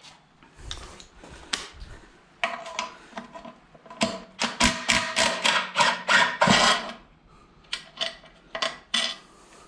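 Metal hand tools clinking: sockets knocked about in a socket case, then a run of rapid metallic clicks and clanks, loudest from about four to seven seconds in, as a wrench works a bolt on a manual transmission's bellhousing.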